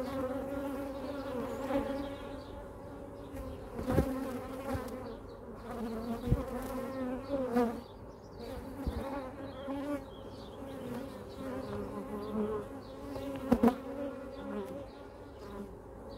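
Honeybees buzzing around an open plastic five-frame nuc hive, a steady drone of several wavering pitches. A few sharp knocks as the hive frames and plastic box are handled, the loudest a close pair about three quarters of the way through.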